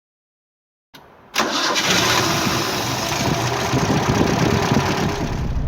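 A car engine starting: a faint sound about a second in, then the engine fires abruptly and runs steadily.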